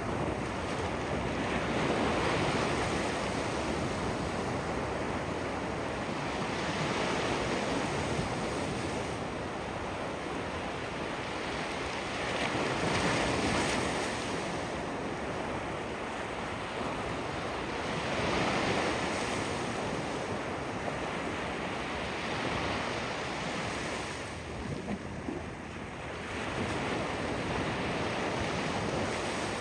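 Ocean surf washing onto the shore, a steady rush that swells with each breaking wave about every five or six seconds.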